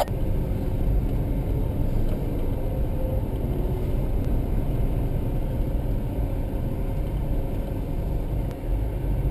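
Car engine and tyre noise heard from inside the cabin while driving, a steady low rumble that dips briefly near the end.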